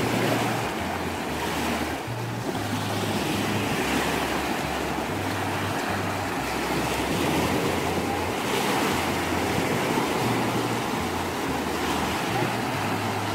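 Small lake waves washing and fizzing onto a sandy shore, a steady rushing. A background music track with a stepping bass line plays underneath.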